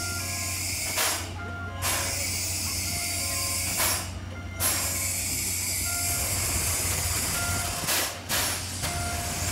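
A C11 steam tank locomotive hissing steam steadily as it stands on a rotating turntable, with a steady low hum beneath. The hiss breaks off briefly about a second in, about four seconds in and about eight seconds in. Faint short beeping tones at several pitches come and go.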